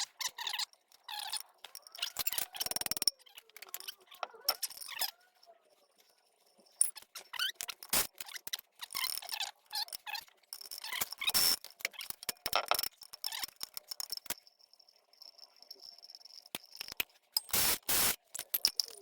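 Metal-on-metal clinking, rattling and scraping of hand tools and loose timing-chain parts being unbolted and pulled off the front of a 2.2 L Ecotec engine: a run of separate sharp clicks and short scrapes with brief pauses between them.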